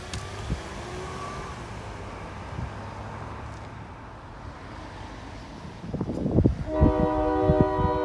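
Low rumble of road traffic passing close by, then a few low thumps. Near the end, the air horn of an EMD MP15AC switcher locomotive starts a long, steady chord-like blast as it approaches a level crossing.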